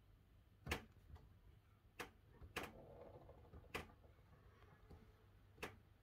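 About six short, sharp clicks at irregular intervals, the loudest just under a second in, over a faint low hum.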